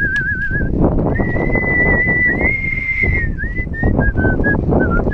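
A person whistling a tune in a pure, clear tone: a quick warbling trill, then a long high note held for about two seconds, then a run of short notes. A low rumbling noise runs underneath.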